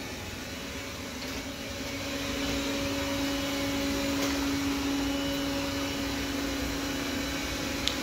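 Roborock S4 robot vacuum running at full suction power: a steady motor-and-fan hum with a constant tone, growing somewhat louder a couple of seconds in as it drives out across the tile floor. A small click comes near the end.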